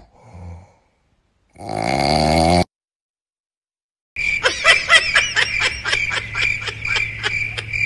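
A sleeping grey cat snoring: a faint breath, then one loud, wavering snore about two seconds in. After a pause, a rapid run of short chirping clicks, about four a second, over a steady high whine.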